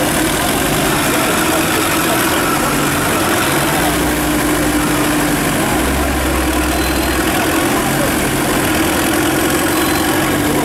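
Off-road 4x4 engines running at idle, a steady drone whose low hum grows stronger for a few seconds past the middle.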